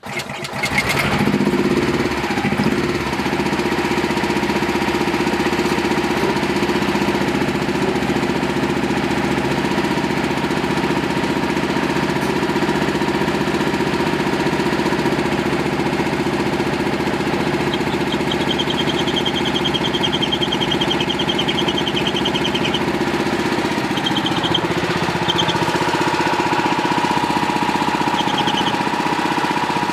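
Pluk-O-Trak's 13 hp Honda engine starting and then running steadily. In the second half a high, pulsing squeal comes and goes, which the owners put down to a slipping V-belt.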